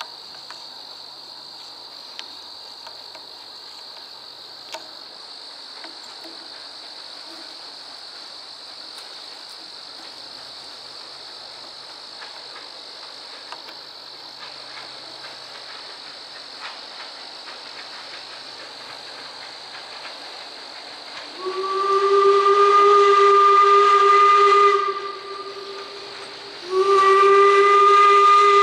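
Steam locomotive whistle blowing a loud, clear single note: a long blast of about three seconds starting some twenty seconds in, a short pause, then a second long blast near the end. Before the whistle there is only a steady faint high hiss.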